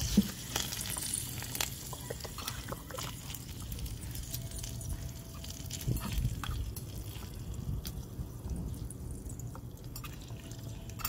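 Tiny steel spatula scraping and clinking against a miniature steel pan while ginger-garlic paste is stirred: scattered light metallic clicks.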